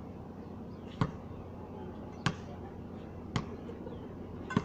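Basketball bouncing on a concrete court, four sharp bounces roughly a second apart.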